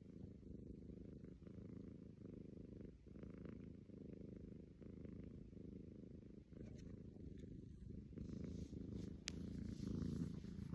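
Persian cat snoring: a low sound in steady breaths, with a short break about every second and a half. A single sharp click sounds near the end.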